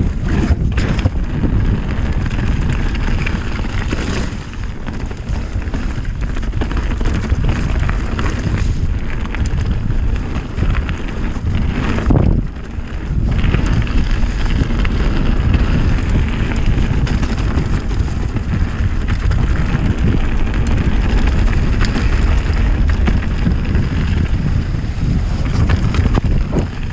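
Wind rushing over the camera's microphone, mixed with the rumble and rattle of a Calibre Bossnut mountain bike's tyres and frame on a muddy forest trail at speed, with a brief lull about twelve seconds in.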